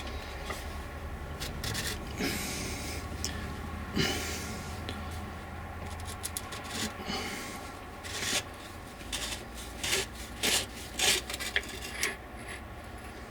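Metal scraping and rubbing as a corroded steel grease gun is worked by hand to loosen a threaded part, with a run of short sharp clicks and knocks in the second half.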